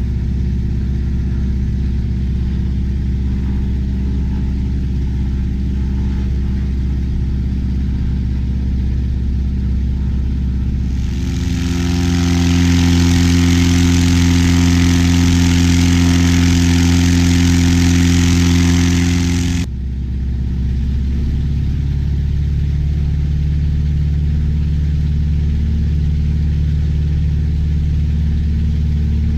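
Lycoming O-320 four-cylinder aircraft engine, ported, polished and balanced, running steadily at low power during a run-up. About eleven seconds in it is run up to a louder, higher-power note with a rushing air noise for about eight seconds, then throttled back abruptly to the lower steady run.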